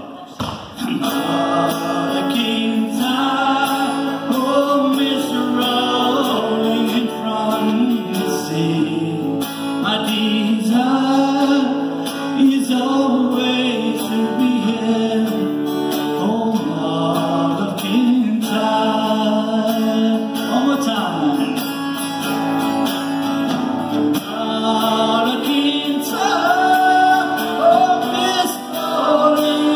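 Live acoustic guitar strumming with a man singing at the microphone, a slow folk ballad heard through a theatre PA.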